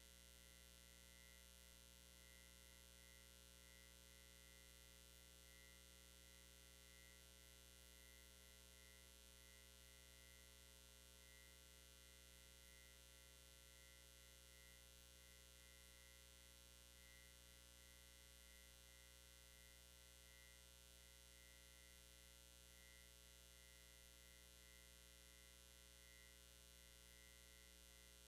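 Near silence: a faint, steady electrical hum with a thin high tone above it, and nothing else.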